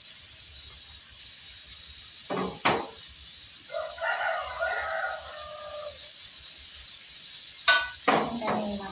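A rooster crows once, a call of about two seconds starting about four seconds in, over the steady hiss of anchovies and peanuts frying in oil in a pan on a gas stove. A sharp click comes near the end.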